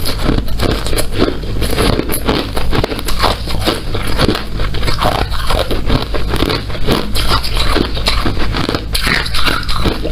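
A person biting and chewing hard ice cubes, with dense, irregular crunching, several crunches a second.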